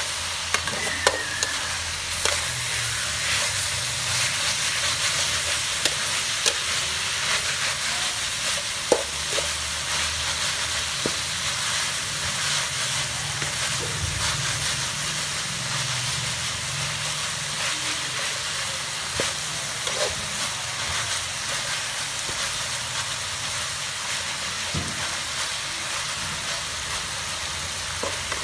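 Chicken and shredded lemongrass sizzling in hot oil in a stainless steel wok as they are stir-fried, with a metal spatula scraping and clicking against the pan now and then.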